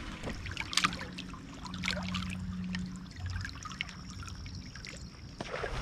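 Lake water trickling and lapping against a fishing boat, with a few light clicks and a faint low hum for a second or so in the middle.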